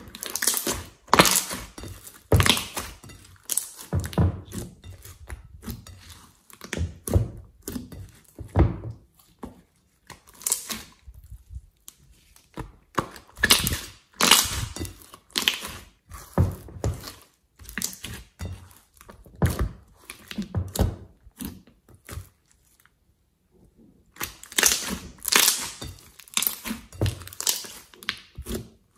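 Glossy slime being squeezed, pressed and poked by hand in a glass bowl: wet squelching with irregular clusters of short, sharp pops, broken by a pause of a couple of seconds about three-quarters of the way through.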